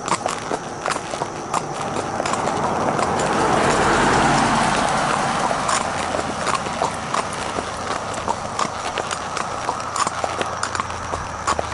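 Belgian draft horse's hooves clip-clopping on asphalt at a walk. A car passes by, its tyre and engine noise swelling to a peak about four seconds in and then fading.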